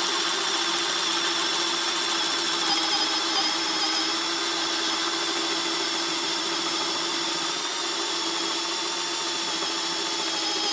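Makita brushless cordless hammer drill on speed 1 driving a 1.5-inch Bosch Daredevil spade bit down through thick lumber. The motor runs under load with a steady whine that holds an even pitch and level.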